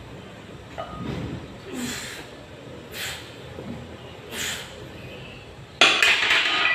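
Man breathing out hard with each rep of an incline barbell bench press, a short forceful exhale every second or so. A sudden louder noise breaks in near the end.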